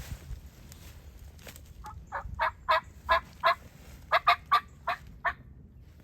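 Turkey yelping: two loud runs of about half a dozen evenly spaced notes each, the second starting about a second after the first ends.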